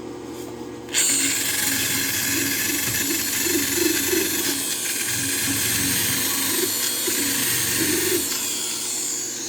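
Electric arc welding on steel: the arc strikes about a second in and holds as a steady hiss, then tails off just before the end.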